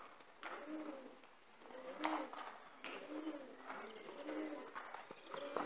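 Pigeon cooing over and over, a low arching coo repeated about every two-thirds of a second. A few short scuffs come in between, the loudest about two seconds in.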